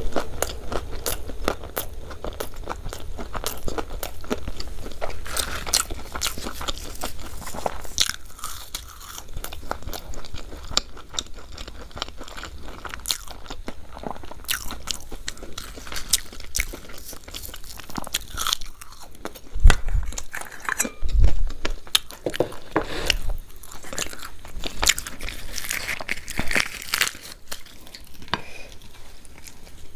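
A person eating close to the microphone: biting and chewing with irregular crisp crunching, and two dull thumps a little past the middle.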